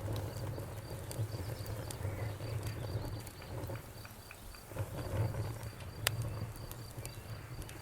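Wood fire crackling: a steady low rumble of flames with scattered sharp pops and snaps, the loudest pop about six seconds in.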